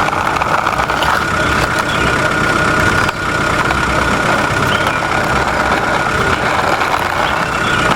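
Steady truck-engine running sound with a constant high whine over it.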